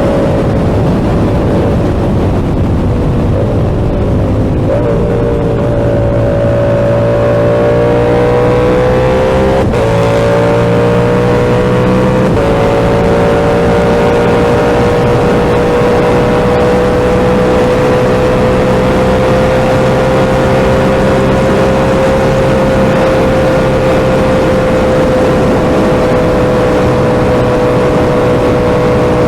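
Yamaha R7's 689 cc parallel-twin engine through an SC-Project exhaust, heard from the rider's position while riding. The engine note changes in sudden steps a few times in the first dozen seconds, as with gear changes, then holds a steady cruise with only slow rises and falls in pitch.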